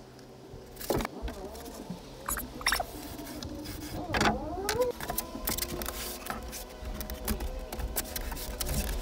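Rigid insulation foam board squeaking and scraping against plywood as it is pushed and fitted into place, with scattered light knocks and taps; the loudest squeaks come about a second in and just after four seconds.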